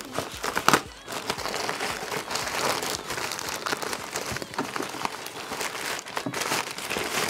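Plastic courier mailer bag being torn open and crumpled by hand, a continuous crinkling and crackling with a few sharp clicks in the first second.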